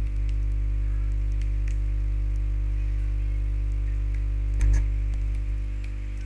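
Steady electrical mains hum on the recording, with a few faint clicks and a short bump about four and a half seconds in.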